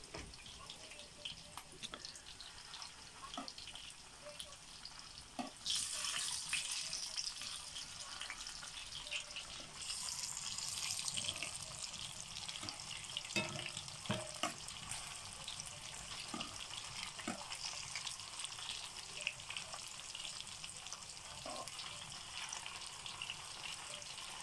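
Meat patties (pârjoale) sizzling and crackling in hot oil in a frying pan, with a fork clicking against the pan as they are turned. The sizzling swells louder about six seconds in and again around ten seconds in.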